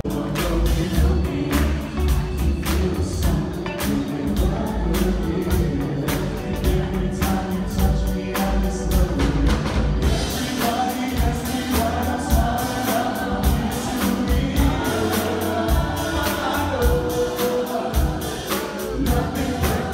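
Live band with a drum kit and keyboards playing under a male lead singer and a group of backing singers, with a steady drum beat. Heard from the audience seats of a hall.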